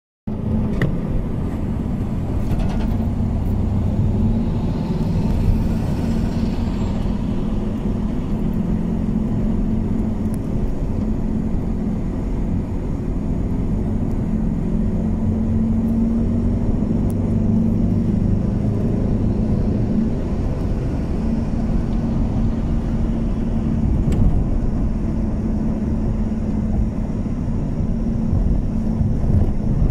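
Steady engine and tyre rumble of a moving car, heard from inside the cabin, with a hiss that swells and fades about five seconds in.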